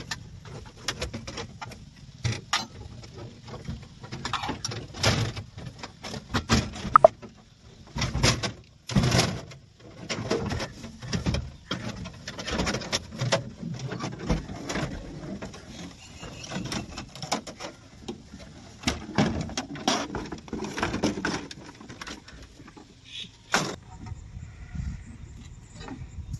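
Spanner clicking on bolts and the sheet-metal rear cover panel of a Komatsu PC210 excavator cab knocking and scraping as it is unbolted and taken off. Irregular clicks and knocks throughout, with a sharp metallic knock about seven seconds in.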